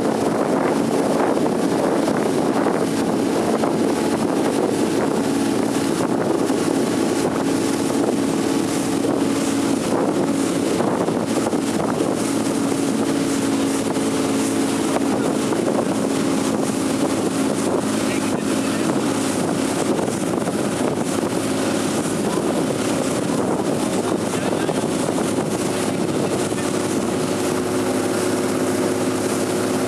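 Small motorboat's engine running steadily at a constant pace, with a hum that holds one pitch, and wind buffeting the microphone.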